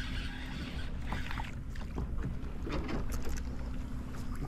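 Water lapping and splashing lightly against a kayak's hull, with small scattered ticks over a low steady rumble.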